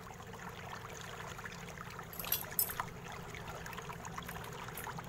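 Tweezers prying the keyboard of a Lenovo IdeaPad E10-30 netbook out of its frame: a few faint light clicks about two seconds in, over a steady low hum.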